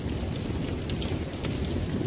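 Wood fire burning in a fireplace, crackling with many small irregular snaps over a steady low rumble.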